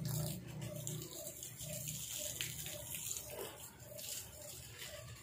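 Running, splashing water as potted orchids are watered, a steady hiss of water. Beneath it a faint soft note repeats about two to three times a second.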